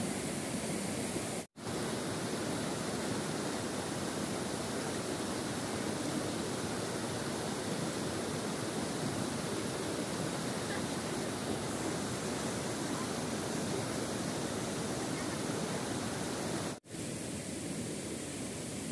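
Rocky mountain stream rushing over stones and small cascades: a steady hiss of running water. It cuts out briefly twice, about a second and a half in and again near the end.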